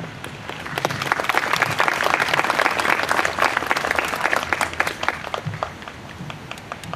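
Audience applauding: the clapping builds up within the first second and dies away near the end.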